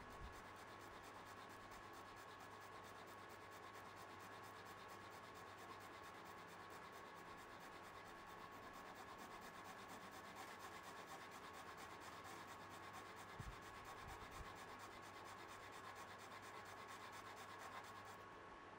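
Nut slot file rasping back and forth in a string slot of a 1970 Fender Jazz Bass's nut, deepening the slot for a lower string height. The strokes are faint, quick and even, and stop shortly before the end.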